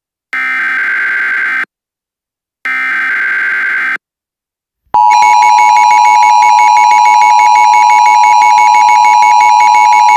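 Emergency Alert System SAME header: two short blasts of buzzing digital data tones about a second apart, then, about five seconds in, the loud, unbroken two-tone EAS attention signal starts. It signals the start of an emergency alert, here a flash flood warning.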